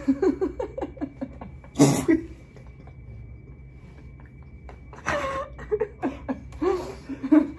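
Two people laughing in short bursts, with one sharp cough-like burst about two seconds in.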